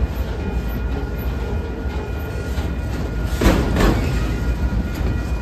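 Autorack freight cars rolling past: a steady rumble of steel wheels on the rails, with two louder clacks in quick succession a little after three seconds in as a pair of wheelsets crosses a rail joint.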